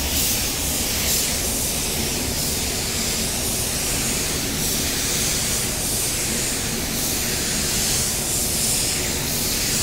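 Compressed-air paint spray gun laying down a first coat of blue basecoat, run at about 20 PSI: a steady hiss of air and atomised paint.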